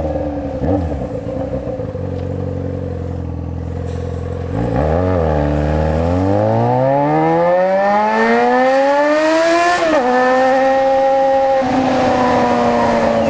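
Yamaha XJ6's 600 cc four-cylinder engine revved while standing: it idles, blips once about a third of the way in, then climbs steadily in revs for about five seconds, drops sharply, and is held at a raised, steady rpm to the end.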